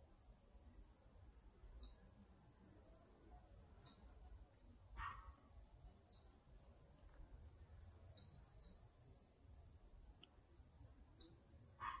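Faint steady high-pitched insect chorus, with a bird giving short falling calls about every two seconds and two lower downward-sliding calls.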